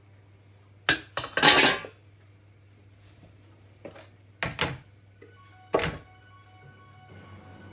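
Kitchen pots, pans and utensils knocking and clattering: a few separate knocks, with the loudest and longest clatter about a second and a half in.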